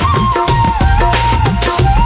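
Background music: a steady drum and bass beat under a sliding lead melody.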